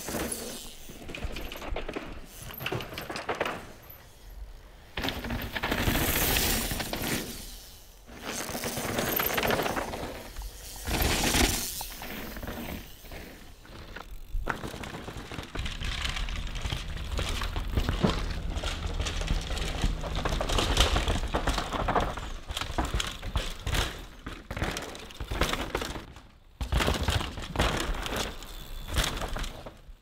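Downhill mountain bikes ridden fast over dirt and roots: tyres crunching and skidding on loose soil, with the chain and frame rattling and knocking over bumps, and swells of rushing noise as riders pass close.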